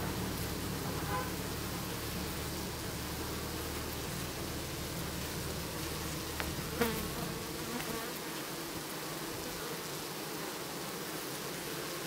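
Honeybees buzzing, a steady hum with a brief louder buzz just past halfway. A low rumble underneath drops away about eight seconds in.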